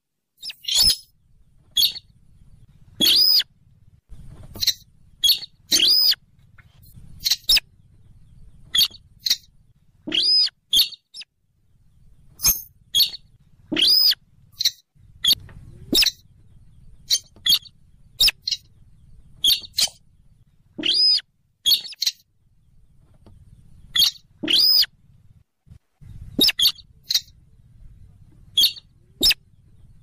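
Buff-banded rail calling, from a looped bird-lure recording: short, sharp squeaky calls repeated irregularly, about one or two a second, over a faint low hum.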